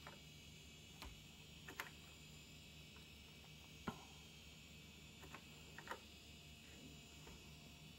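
Faint keystrokes on a DEC VT220 terminal's keyboard: about six scattered key presses, the loudest about four seconds in, over a faint steady electronic hum.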